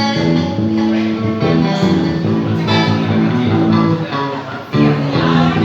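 Live band playing an instrumental stretch of a reggae song, with guitar and bass in front and no vocals. It breaks off briefly near the end before the band comes back in.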